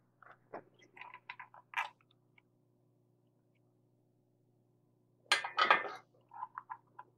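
Faint clicks and taps of small parts and wires being handled during soldering at a workbench, with a short louder noisy rustle about five seconds in and a few more light clicks near the end.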